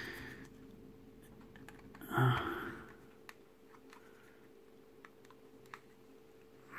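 Faint clicks and taps of plastic scale-model parts being handled and test-fitted in gloved hands, with one short breathy exhale about two seconds in.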